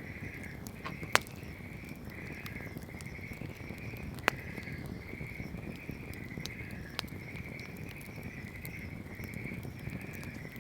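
Wood bonfire burning with a low, steady crackle and sharp pops of wood, the loudest about a second in and about four seconds in. Behind it, a continuous chorus of high chirps pulses two or three times a second.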